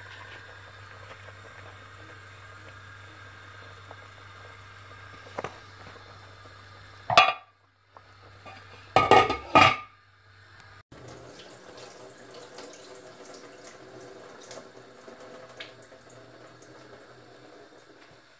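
Metal clanking from a stainless steel cooking pot and its lid: one sharp clank about seven seconds in, then a quick run of three or four clatters around nine seconds, over a steady low hum. After that, water running and draining in a stainless steel kitchen sink.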